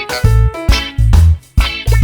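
Background music: an upbeat funk-style track with a punchy bass line, drums and guitar.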